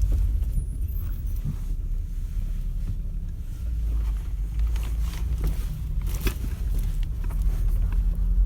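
Low road rumble heard from inside the cargo area of a moving SsangYong Actyon, with scattered light knocks and rattles from the tailgate: the stray knock that is being hunted down.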